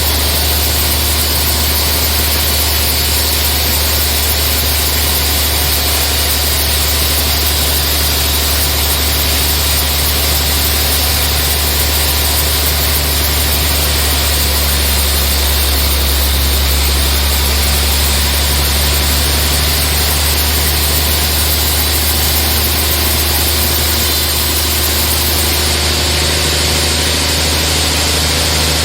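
Sawmill machinery running steadily: a deep, even engine-like drone with a hiss over it, unchanging throughout.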